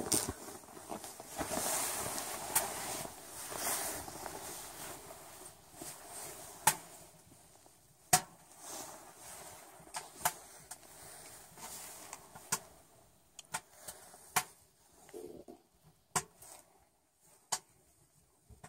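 Rustling and crunching of spruce boughs on the tent floor for the first few seconds. After that come a dozen or so sharp, single pops and clicks at irregular intervals.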